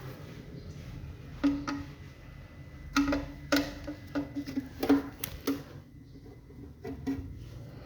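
A series of irregular clicks and knocks, about a dozen in all, each with a short low ring. They are bunched in the first half and two more come near the end.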